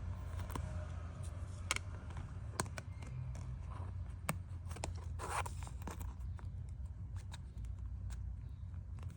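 Hands packing photocards: scattered sharp clicks and taps as cards and packing materials are handled, with a brief rustling slide about five seconds in, over a steady low hum.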